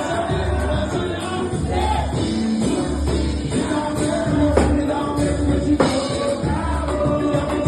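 Live samba band playing with sung vocals over a steady percussion beat.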